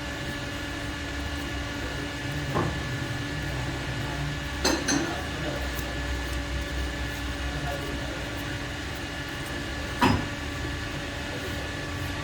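Steady low mechanical hum with a few sharp metallic clinks, about three over the stretch, the last the loudest.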